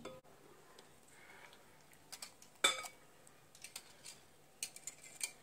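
Scattered light clinks and taps of a metal wire whisk against a glass tumbler and a glass mixing bowl as soft butter is scraped out of the glass into the bowl. The sharpest clink comes about halfway through, with a few quicker taps near the end.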